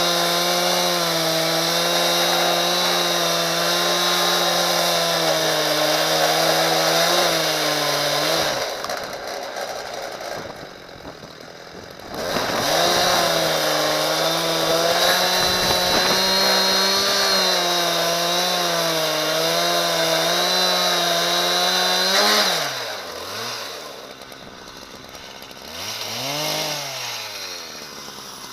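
Husqvarna 372 XPG two-stroke chainsaw with a ripping chain, held at full throttle as it rips lengthwise through a dry, hard ash log on a chainsaw mill. About eight seconds in it drops back for a few seconds, then runs at full throttle again for about ten seconds. It eases off with a falling pitch around twenty-two seconds, and near the end it gives one short rev that rises and falls.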